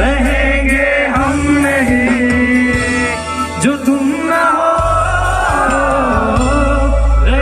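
Live band music with a male vocalist singing, over a drum kit and keyboards. The heavy bass drops out for a couple of seconds midway, then comes back.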